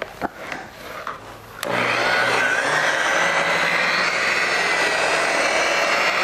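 A handheld electric rotary polisher with a foam pad starts up about a second and a half in and runs steadily while buffing single-stage enamel paint on a car fender. Its motor pitch steps up soon after it starts. Before that there are a few light handling clicks.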